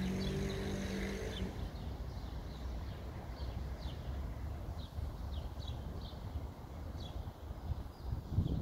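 Outdoor street ambience: a low rumble throughout, with a steady hum that stops about a second and a half in. Small birds chirp in short, quick falling notes, repeated many times.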